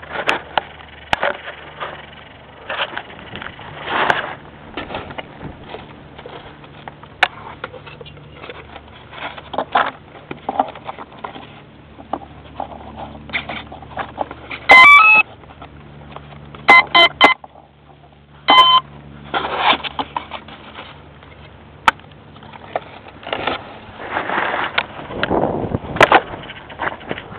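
Knocks, clicks and rustling from the foam RC airplane and camera being handled on grass. About halfway through, a quick run of rising electronic beeps, then two short beep pairs a couple of seconds later: the startup and arming tones an electronic speed controller plays through the Hacker A20-26M brushless motor when the flight battery is connected.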